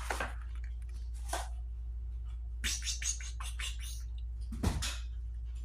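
Cat's claws scrabbling and scratching on a surface during play: a few scattered scrapes, then a quick run of short scratches, and one louder scrape near the end, over a steady low hum.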